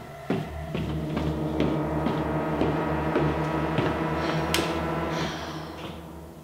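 Horror-film score drone: sustained low tones over a throbbing bass pulse, swelling after the first second, with one sharp hit about four and a half seconds in, then fading away near the end.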